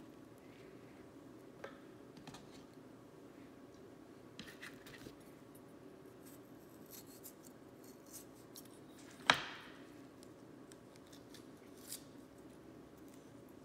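Kitchen knife slicing and scraping aloe vera leaves on a cutting board: scattered light cutting clicks and scrapes, with one sharp knock about nine seconds in.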